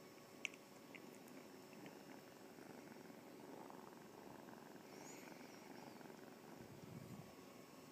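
Kitten purring faintly and steadily, with a single sharp click about half a second in.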